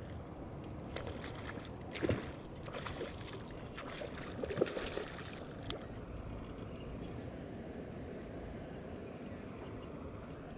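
A small hooked trout splashing at the surface beside a kayak as it is brought in and released by hand, several sharp splashes between about one and six seconds in, the loudest near two seconds and again a few seconds later. Under it, water lapping at the hull with a steady low hiss.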